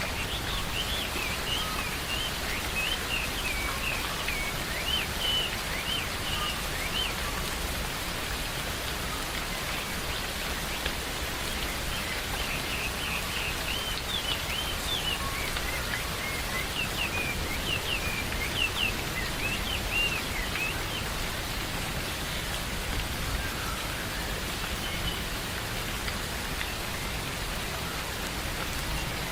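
Steady rain falling, with small birds singing in quick chirping phrases in two spells, the first right at the start and the second from about twelve to twenty seconds in.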